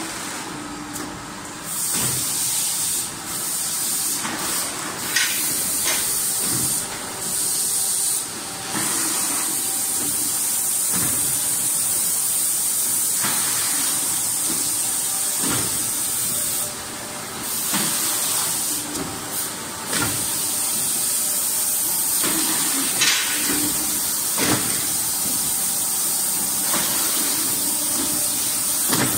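Nursery pot (seedling tray) making machine running: a steady hiss with brief, louder bursts of hissing every few seconds and scattered knocks of the machine at irregular intervals.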